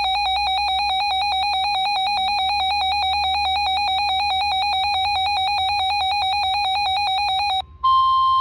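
Weather alert radio sounding its alarm: a rapid, high-pitched electronic beeping that stops near the end. After a brief gap, the steady single-pitch NOAA Weather Radio warning alarm tone begins, signalling that a warning message is about to be broadcast.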